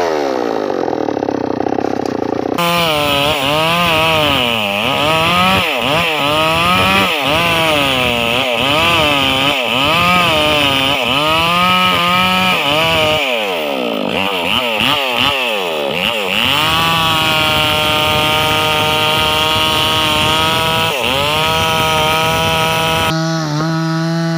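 Mini chainsaw cutting into a rubber tree trunk, the engine revving up and down again and again, then held at steady high revs for a few seconds before falling to a lower pitch near the end.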